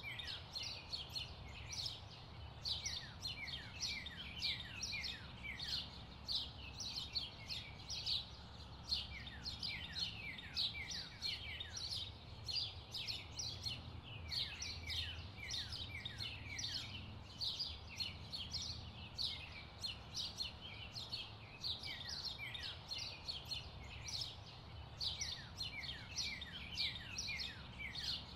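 Birds chirping continuously, many short downward-sweeping chirps a second overlapping one another, over a low steady rumble.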